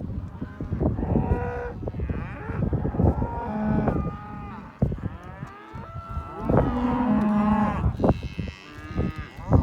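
A herd of cattle mooing, several animals calling over one another, some calls low and some higher, with a brief lull about halfway through.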